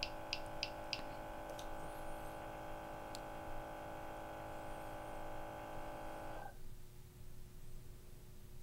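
Trak-It IIIa gas detector during its auto-zero: a quick run of short high beeps, about five a second, that stops about a second in. Under them is a faint steady hum of the detector's sampling pump, which cuts off about six and a half seconds in.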